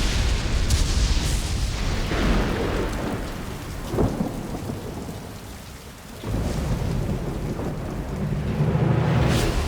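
Thunderstorm: heavy rain with deep rolling thunder, a sharp thunder crack about four seconds in and the rumble swelling again near the end.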